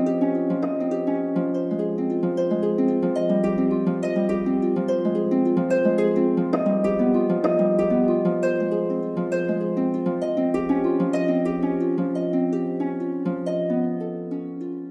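Background music of quick plucked, harp-like notes over a held low note, growing a little quieter near the end.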